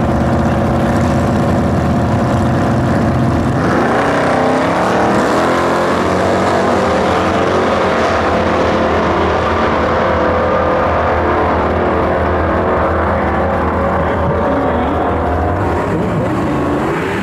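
Two 1960s Super Stock muscle cars' V8 engines held at raised revs on the drag strip start line, then launching at full throttle, the engine pitch climbing and dropping through gear changes as they run away down the track.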